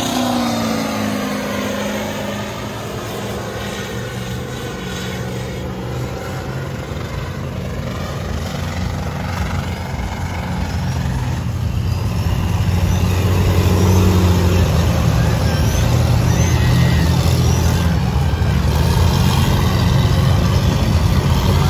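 Lifted diesel mud trucks' engines running as they churn through deep mud. A nearby truck's engine drops in pitch right at the start, then a steady engine drone grows louder about halfway through.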